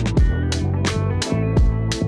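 Chill hop background music: a steady drum beat over a bass line and sustained melodic notes.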